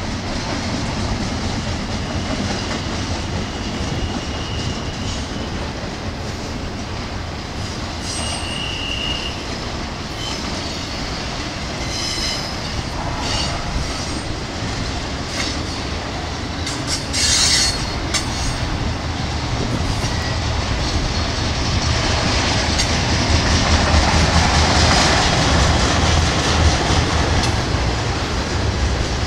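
Intermodal freight train's double-stack and trailer cars rolling past, a steady rumble and clatter of steel wheels on rail. Brief high wheel squeals come in a few times, with a short sharp burst about two-thirds of the way through. The train grows louder near the end.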